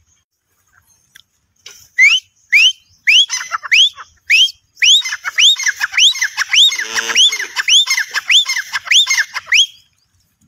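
Grey francolin calling: loud, high, rising whistled notes. The notes begin about two seconds in, spaced a little over half a second apart, then quicken into a rapid run of paired notes before stopping shortly before the end.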